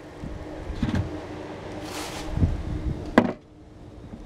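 Handling and movement noise: scattered low knocks and scuffs, a short hiss about two seconds in and a sharp click just after three seconds, over a faint steady hum.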